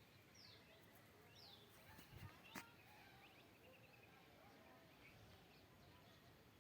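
Faint mix of several wild birds calling: short high notes sweeping downward, scattered chirps and a rapid trill of repeated notes. A single sharp click sounds about two and a half seconds in.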